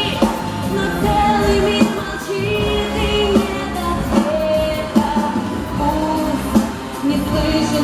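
Pop song with a steady beat and sung melody, played over a sound system.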